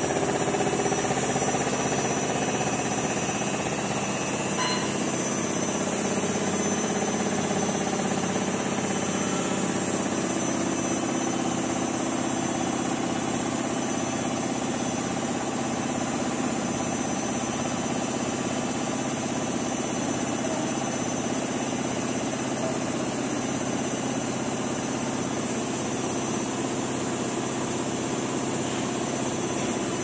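IFB Senator Aqua SX front-loading washing machine in its full spin, the drum turning at about 1000 RPM, giving a steady hum with several constant tones. The spin stays even, with no knocking from an unbalanced load.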